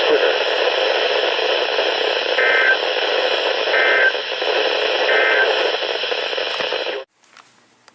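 Loud hiss of static from a weakly received radio broadcast, with three short, faint bursts of EAS SAME header data tones about a second and a half apart showing through it. The static cuts off abruptly about seven seconds in, and a click follows near the end.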